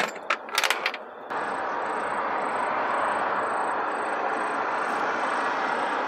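A few sharp metallic clinks as the transmission's switch plate and tools are handled, then, about a second in, a steady even rushing noise that starts suddenly and holds at an even level.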